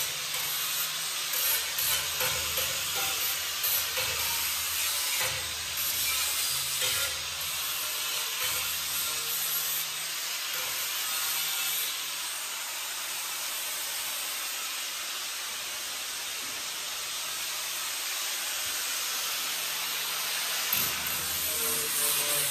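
Electric angle grinder running against the edge of a steel plate table top, a steady gritty hiss with a faint low rumble that comes and goes. The grinder is rounding over and deburring the plate's razor-sharp edges.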